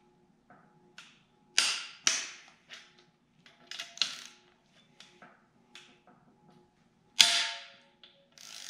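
Sharp metallic clicks and clanks of a wrench working the head-stud nuts on a BMW M54 engine, a handful of separate strikes, each ringing briefly, the loudest about seven seconds in.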